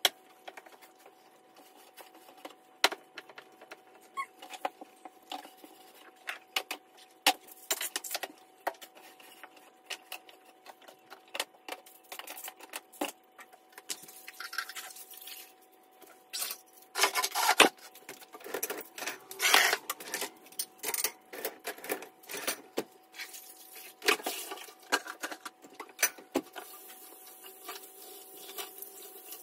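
Kitchen items being handled and set down on a countertop during cleaning: scattered clicks, knocks and rubbing, with louder bouts of clattering and scrubbing over about a third of the way through and again later, over a faint steady hum.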